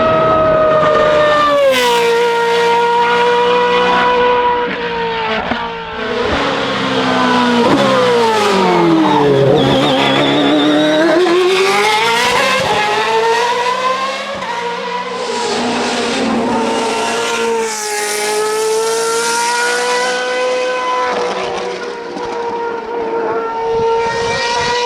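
Hill climb race car's engine running at high revs. The pitch drops suddenly about two seconds in, as on an upshift. It falls steeply through downshifts as the car brakes for a corner, then climbs again as it accelerates away, with another sudden drop later on.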